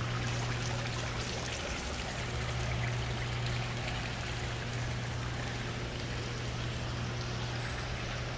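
Steady rushing, water-like hiss under a low, steady hum, unchanging throughout.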